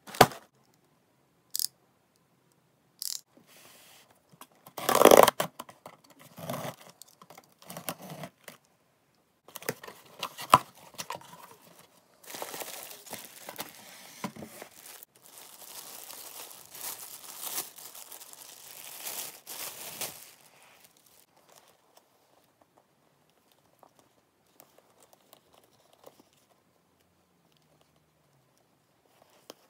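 Packaging being torn open by hand: a few sharp rips in the first seconds, one loud tear about five seconds in, then about eight seconds of steady crinkling as the handbag is pulled out of its plastic wrap, followed by only faint handling sounds.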